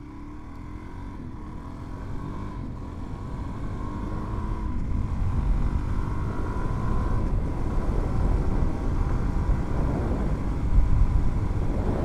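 Suzuki DR-Z400's single-cylinder four-stroke engine pulling as the bike gets under way, its pitch rising over the first few seconds. Wind rumble on the microphone grows louder as speed builds.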